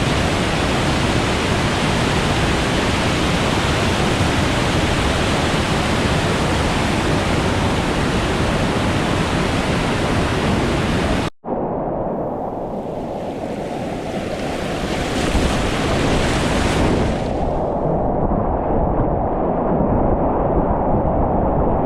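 Rushing whitewater of a mountain river, a loud steady hiss of water. About halfway through it cuts out for an instant and comes back duller, with much less high hiss.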